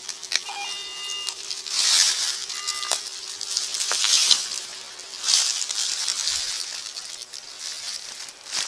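Garrett AT Pro metal detector giving short high-pitched beeps over a buried target, twice in the first three seconds. Between and after the beeps come several loud scratchy rustles in the leaf litter and soil.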